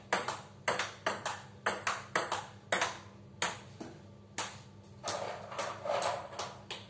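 Table tennis rally: the celluloid/plastic ball clicking off the rubber bats and the table, hits and bounces alternating a few times a second. The rally breaks off a little past halfway, and a few more scattered ball clicks follow.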